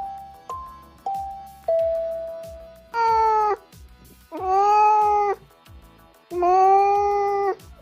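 Light music of short, decaying mallet-like notes, then a cat meowing three times in long, drawn-out calls, the last two longer than the first.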